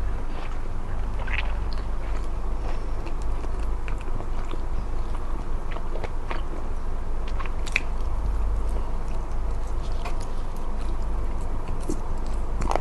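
Close-miked chewing and biting of smoked chicken, with scattered short mouth clicks and crunches, over a steady low hum.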